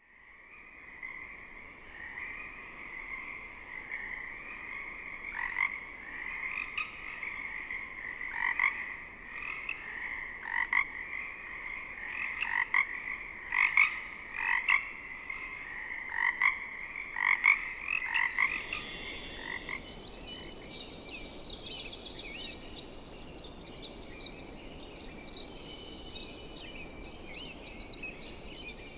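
Pacific chorus frogs chorusing: a steady distant chorus, with nearby frogs giving loud two-part calls over it from about five seconds in. About eighteen seconds in it gives way to a dawn chorus of song sparrows and American robins singing.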